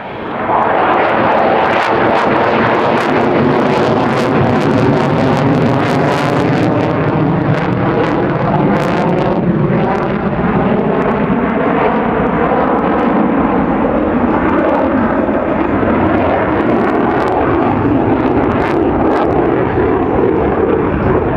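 Loud jet noise from an F/A-18F Super Hornet's twin General Electric F414 engines. It jumps up within the first second and holds steady, with its tone slowly sweeping and sharp crackles running through it.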